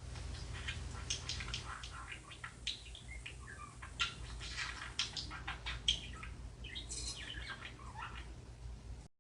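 Birds chirping: many short, sharp chirps and quick calls in an irregular scatter, over a steady low hum.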